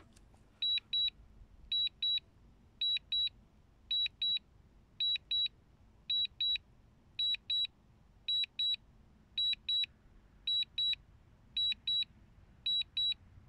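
DJI Mini 2 controller alert beeping in high double beeps, about one pair a second, repeating steadily. This is the low-battery return-to-home warning while the drone climbs and turns for home.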